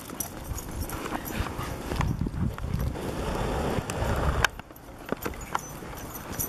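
Footsteps and dog paws crunching on icy packed snow, over a low rumble that drops away about four and a half seconds in, right after a sharp click.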